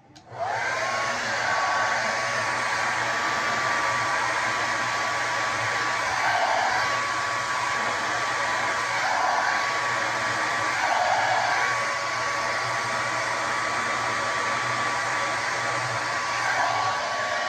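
Handheld hair dryer switched on, its motor whine rising in pitch over the first second and then running steadily under a strong rush of air while blow-drying hair.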